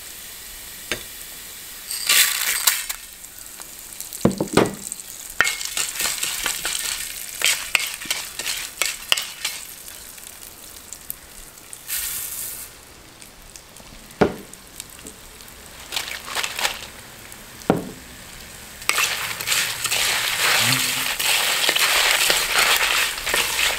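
Spices dry-roasting in a little oil in an uruli, a wide metal pan: seeds and dried red chillies sizzling and rustling as a wooden spoon stirs and scrapes them, with several sharp knocks of the spoon against the pan.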